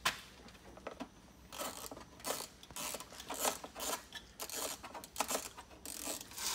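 Irregular clicks, rattles and short scrapes of a junked steering column and its wiring being handled and worked by hand.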